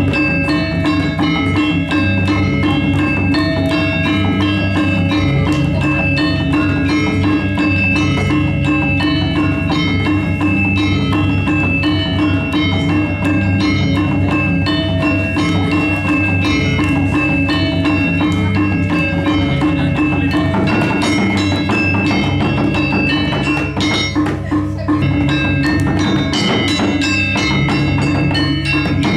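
Balinese gamelan playing a fast, busy piece: bronze metallophones struck in dense rapid patterns of ringing tones over a steady low tone, with no pause.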